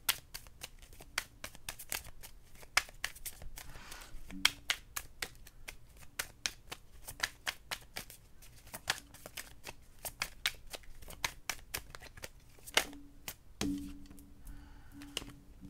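A tarot deck being shuffled by hand: a long run of quick, irregular card flicks and riffles, with a couple of louder knocks near the end.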